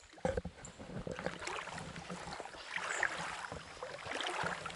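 Water sloshing and splashing in irregular strokes, as of someone wading through a shallow river.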